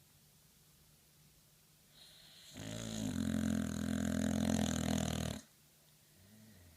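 Dog snoring in its sleep: a soft breath builds about two seconds in, then a loud snore lasting about three seconds cuts off sharply, with faint breathing before and after.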